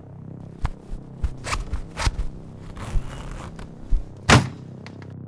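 Foley sound effects for an action scene: a run of sharp knocks, crunches and scrapes, with a longer rustling scrape about three seconds in and a louder impact a little after four seconds.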